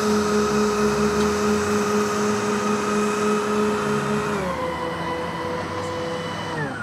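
Engines of a scratch-built twin-jet RC model plane whining steadily at taxi power as it rolls along the ground. The pitch shifts about four and a half seconds in as the throttle is changed.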